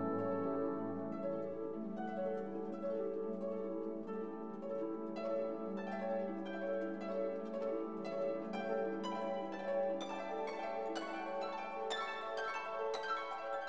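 Background instrumental music of gently plucked string notes, a flowing run of ringing, harp-like tones.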